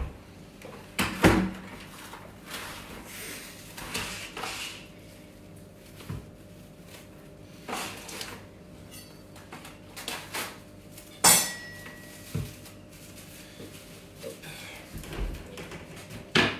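Cling film being pulled off its roll in a cardboard box and wrapped around a ball of dough: rustling and crinkling of the plastic, broken by several sharp knocks and clacks, the loudest about eleven seconds in.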